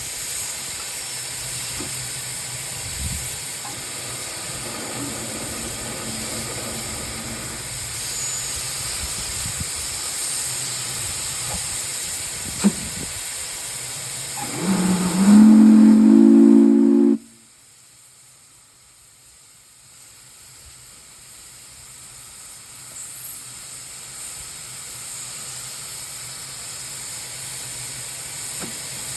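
Steady steam hiss, then about 14 seconds in a 9-inch flat-top three-chime brass steam whistle blown on about 250 psi of locomotive steam: a low three-note chord that slides up slightly as the valve opens, holds about two seconds and cuts off sharply. The whistle sounds good. Afterwards the hiss is much fainter and slowly builds back.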